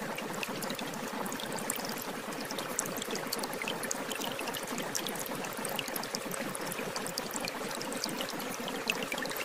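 Shower water running steadily: a constant spray hiss with many small droplet splashes and ticks.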